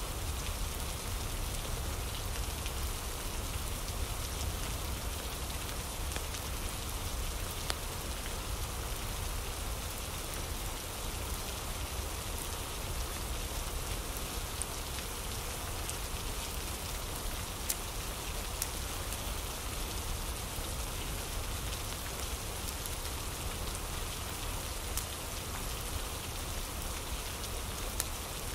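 Steady rain falling, an even hiss with a few scattered sharp ticks.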